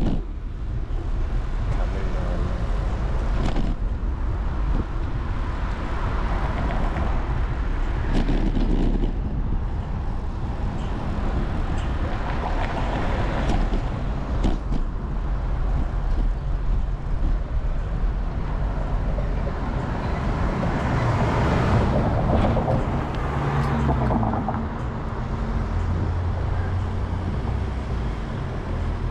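Road traffic heard from a moving bicycle: passing cars and engines over steady wind rumble on the microphone. About three quarters of the way through, a nearby vehicle's engine hum grows louder, then eases off.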